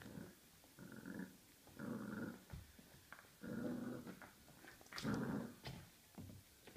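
Border Collie–Labrador cross puppy growling in short play growls, about five in a row, as it mouths and tugs a toy, with light clicks and knocks in between.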